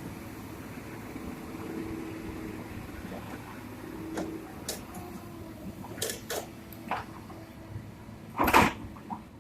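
Excavator engine running steadily at a distance, with a series of sharp knocks and clanks starting about four seconds in, the loudest a short crash near the end.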